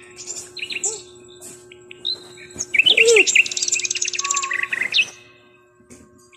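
Small birds chirping in quick, repeated notes and rapid trills, busiest in the middle and falling quiet near the end.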